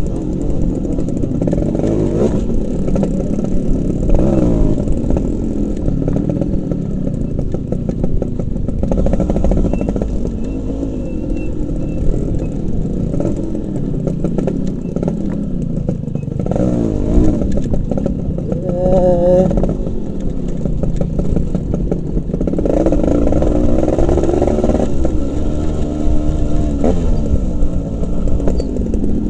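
Two-stroke Yamaha RX motorcycle engine running at low speed, its revs repeatedly rising and falling as the bike is ridden over a rough dirt track.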